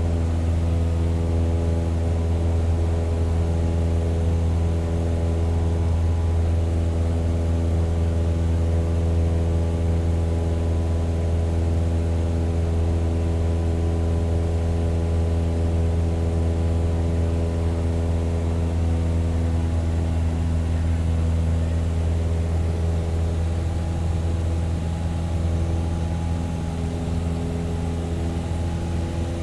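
Propeller plane engine running at a steady pitch: a low, even drone with a stack of steady overtones.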